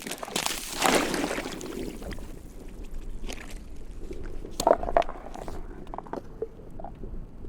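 Reservoir water sloshing against the edge of the ice, with a loud surge at the start followed by scattered knocks and short creaks.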